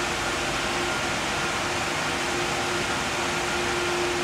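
Three 120 mm radiator fans of an Arctic Liquid Freezer III Pro 360 AIO cooler running fast, around 3000 RPM, giving a steady whoosh of air with a constant hum-like tone through it. At this speed the cooler measures about 55.5 dB, quite a bit louder than the non-Pro model.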